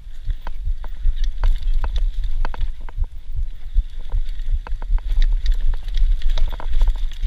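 Mountain bike rattling and knocking as it rides down a rough dirt singletrack, with many irregular sharp clicks and clunks. Under it runs a heavy low rumble of wind and vibration on the body-mounted microphone.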